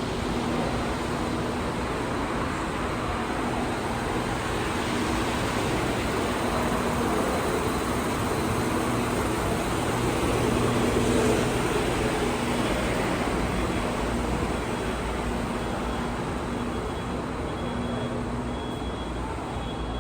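Steady indoor background din of a large casino interior, with a low hum that comes and goes.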